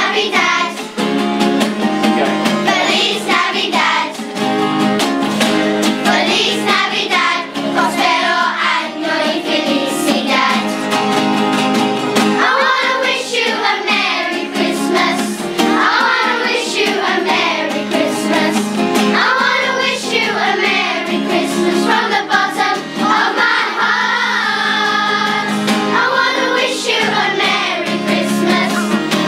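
A children's choir singing a Christmas carol together, with guitar accompaniment.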